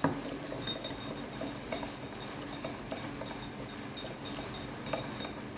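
Close-up chewing of sticky rice and fried fish cake: soft, irregular wet mouth clicks, with a slightly sharper click at the start and another about five seconds in, over a faint steady hum.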